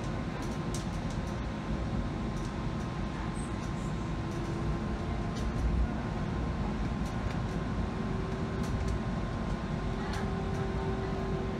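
Interior of a Bombardier Flexity Freedom light rail vehicle running along the track: a steady low rumble from the wheels and running gear, with a faint steady hum and scattered light clicks and rattles.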